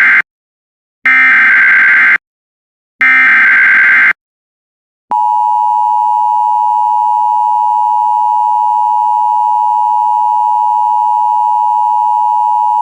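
Emergency Alert System SAME header announcing a tornado warning: the end of one short burst of warbling data tones, then two more, each about a second long and a second apart. Then a loud steady attention tone near 1 kHz starts about five seconds in and holds for about eight seconds.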